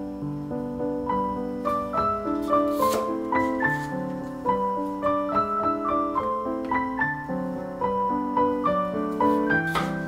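Soft solo piano music playing a flowing melody of single sustained notes, with two short hissing sounds, about three seconds in and near the end.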